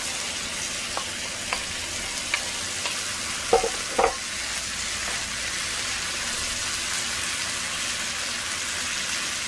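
Green beans and sautéed mushrooms sizzling in an oiled frying pan as a wooden spoon stirs them, with a few light knocks of the spoon against bowl and pan, the loudest two about three and a half and four seconds in.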